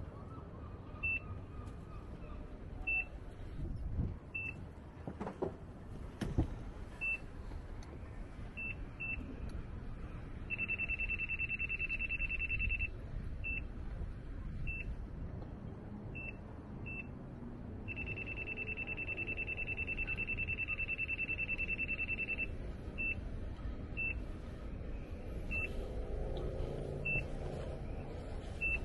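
High electronic beeps from a Proliner digital templating device, a short single beep every second or two as measuring points are recorded, with two longer held tones of the same pitch lasting a few seconds each. A low background rumble runs underneath.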